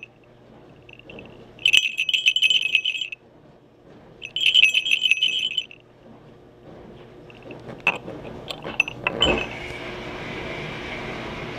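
Handmade falconry bells shaken in two long bursts of bright, high jingling, then a few fainter tinkles and a couple of sharp clicks. From about nine seconds in there is a steady rushing noise. Falconry bells ring like this so the falconer can hear where the bird is and what it is doing.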